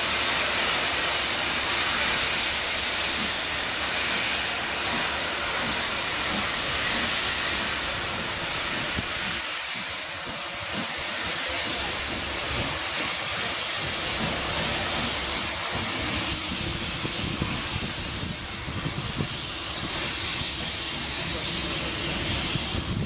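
Steam locomotive letting off steam: a loud, steady hiss, strongest in the first few seconds and a little softer from about ten seconds in.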